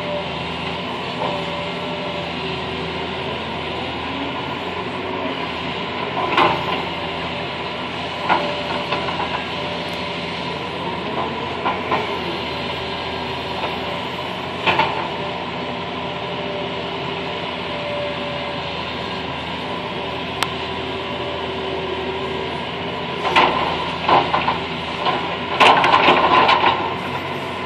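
Excavator's diesel engine and hydraulics running steadily, heard from inside the cab, with a few single clunks of the bucket and a louder run of clattering near the end as the bucket dumps a load of dirt.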